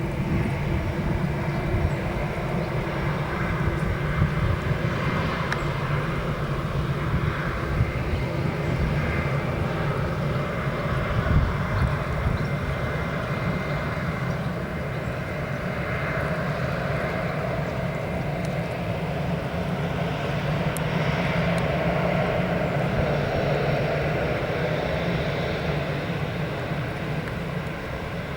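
Airbus A319 jet engines running, a steady, fairly loud noise with slow swells.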